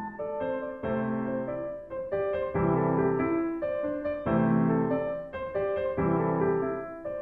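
Instrumental piano music, slow sustained chords changing about once a second, with no singing.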